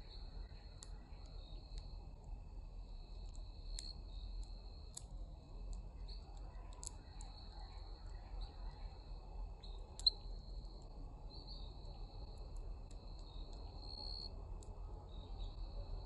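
Steady high-pitched insect trill, typical of crickets, over a low ambient rumble, with scattered sharp clicks and one louder click about ten seconds in.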